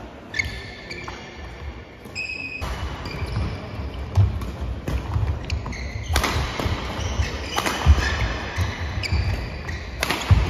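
Badminton doubles rally: the shuttlecock is struck with rackets in sharp cracks, among them jump smashes about six and ten seconds in. Under them, shoes squeak and feet thud on the wooden court floor.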